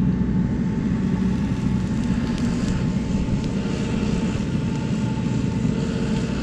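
Steady machine drone with a low hum, with a few faint crackles as molten aluminum is poured onto dry ground and grass.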